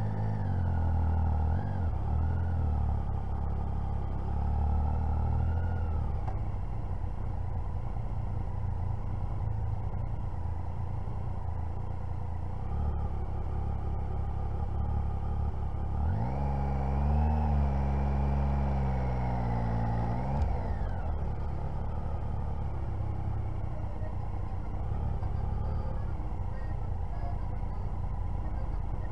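Motorcycle engine running at low speed in slow traffic. Just past halfway the revs rise and hold for about four seconds, then drop back.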